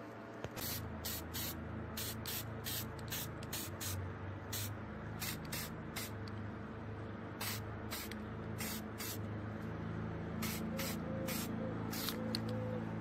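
Aerosol spray-paint can sprayed in many short hissing bursts, two or three a second with brief pauses, over quiet background music.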